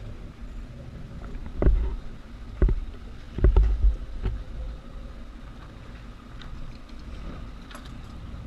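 Steady low rumble of a dive boat's engine idling at the dock, with four heavy thumps and knocks between about one and a half and four and a half seconds in as scuba gear is handled aboard, and a few light clicks near the end.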